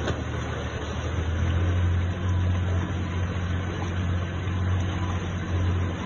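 Motorboat engine running steadily at speed, a low drone, over the rush of churning water from the boat's wake.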